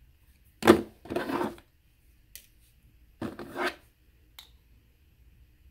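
Plastic skincare tubes and jars being picked up and knocked together while rummaging through a drawer of products and sample packets: two short bursts of clattering and rustling, about a second in and about three seconds in, with a few light clicks between.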